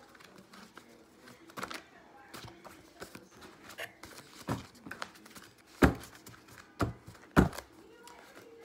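A deck of tarot cards being shuffled by hand: irregular soft clicks and slaps of the cards, with a few sharper knocks past the middle.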